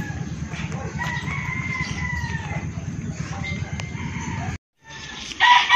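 A rooster crowing, one long call about a second in and a louder one starting just before the end, over a steady low rumble; the sound cuts out briefly about four and a half seconds in.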